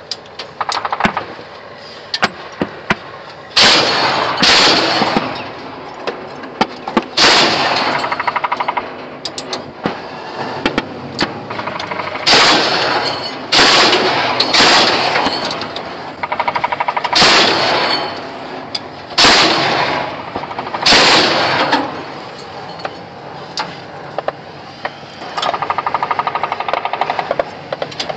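Truck-mounted anti-aircraft gun firing in bursts of rapid shots. There are about nine loud bursts of a second or so each, with lighter rapid fire near the end.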